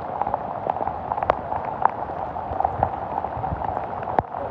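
Heavy rain falling steadily, with many individual drops ticking sharply close by and one louder tick about four seconds in.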